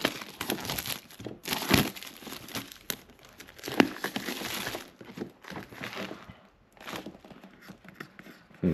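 Plastic shrink wrap being peeled and pulled off a laptop box, crinkling and tearing in quick crackles. It is busiest in the first half and thins out to scattered crackles after that.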